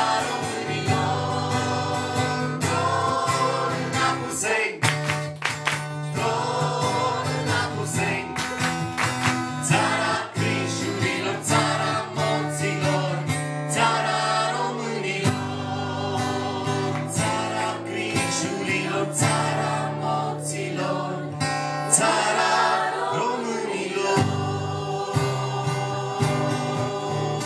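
Folk song sung by many voices together, the audience singing along with the performers, over strummed acoustic guitar.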